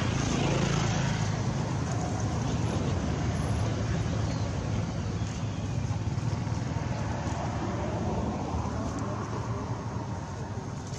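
A motor vehicle's engine running steadily, with a low hum and a noisy rush, easing off slightly near the end.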